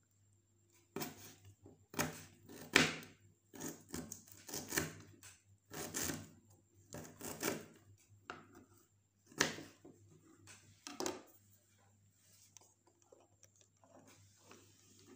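Kitchen knife slicing roasted, peeled ginger and kencur root on a cutting board: a string of irregular knocks as the blade hits the board, stopping about eleven seconds in.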